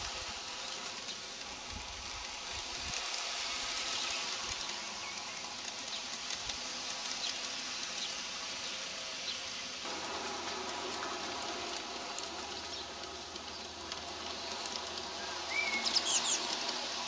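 Steady hum of an Aristocraft G-scale model train running along its garden track, with birds chirping over it and a quick run of chirps near the end.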